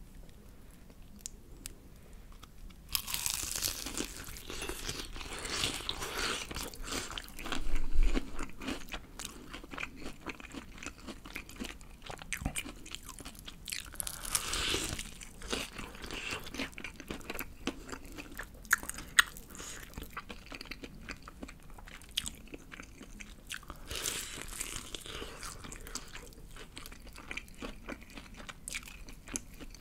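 Bites into the crisp breading of BBQ Golden Olive fried chicken and chews, with close crunching starting about three seconds in. The crunching is sharpest about eight seconds in and continues as irregular crackles with each chew.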